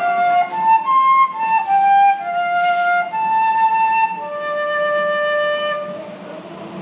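Solo flute playing a slow melody of held notes that step up and down, the last long note fading out about six seconds in.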